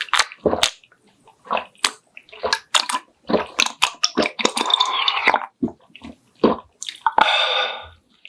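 Close-up eating sounds: wet smacks and chewing, with two longer slurps of loach soup broth, one from about three to five and a half seconds in and a shorter one near the end.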